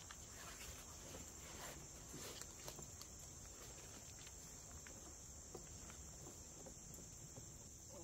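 Quiet woodland ambience: a steady high-pitched insect drone, with a few soft scuffs in the first half.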